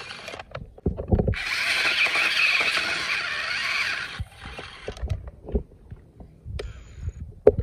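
Radio-controlled trucks' electric drive motors and gearboxes whining as they crawl through mud. The whine is short at the very start, then runs from about a second in until about four seconds, stopping abruptly. Scattered low knocks and thuds follow.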